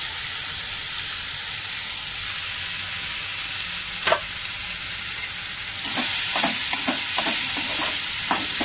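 Rice frying in oil in a metal kadhai, with a steady sizzle. There is one sharp clink about four seconds in, and from about six seconds a metal spoon scrapes and clinks against the pan as the rice is stirred.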